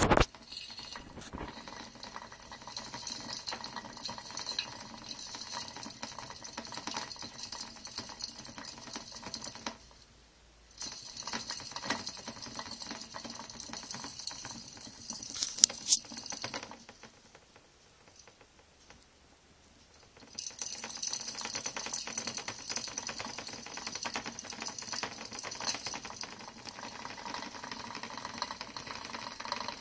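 Clear plastic hamster exercise wheel rattling rapidly as a Roborovski hamster runs in it, stopping briefly about ten seconds in and for about three seconds a little after halfway, then starting again. A sharp knock at the very start and a couple of sharp clicks about halfway through.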